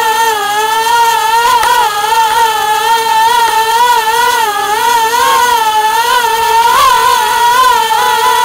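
Caged inspection drone's propellers whining loudly and continuously, the pitch wavering up and down without pause as the motors change speed while it manoeuvres.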